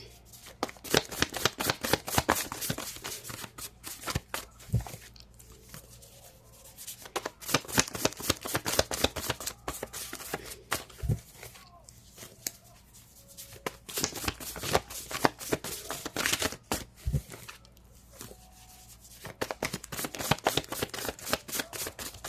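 Tarot cards being shuffled in four rounds of quick crisp riffling, each a few seconds long, with a short low thump after each of the first three rounds.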